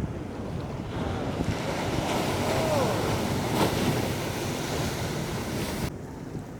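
Ocean wave breaking and washing through, with wind buffeting the microphone. The rush swells after about a second and cuts off abruptly near the end.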